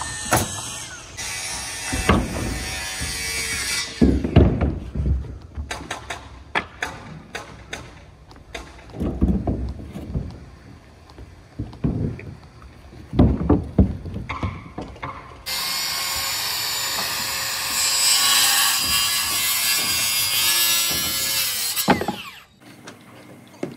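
Framing-site work noise: an irregular run of sharp knocks and clicks, then a circular saw cutting through lumber for about six seconds before stopping suddenly near the end.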